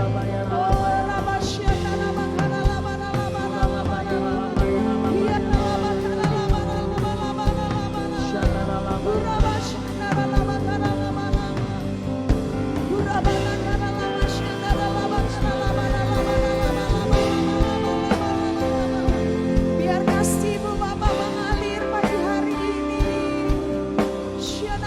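Worship band music with singing over a steady drum-kit beat.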